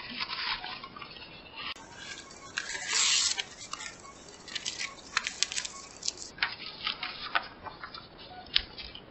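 Clear peel-and-stick adhesive film being unrolled and handled: crinkling and crackling of the plastic sheet with many small sharp clicks, and a louder rustle about three seconds in.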